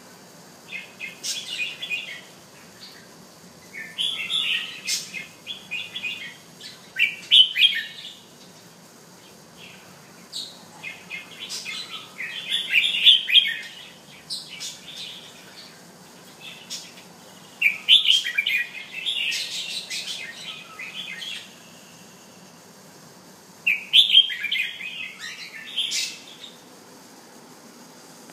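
A red-whiskered bulbul (jambul) singing: bursts of quick chirpy phrases lasting a few seconds each, with pauses of a few seconds between them.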